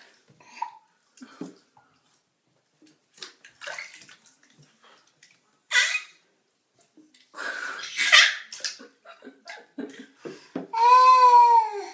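A baby laughing and giggling in breathy bursts while bath water splashes around him, ending in a long, loud, high-pitched squeal near the end.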